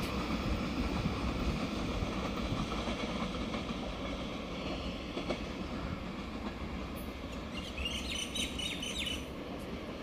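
Passenger train running along the track away from the platform, a steady low rumble that slowly fades. About eight seconds in, a quick series of short high chirps sounds over it.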